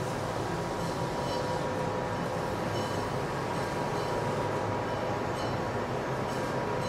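Steady machine-hall noise inside a heavy-engineering factory: a constant mechanical rumble with a steady hum, and faint high-pitched sounds that come back every second or so.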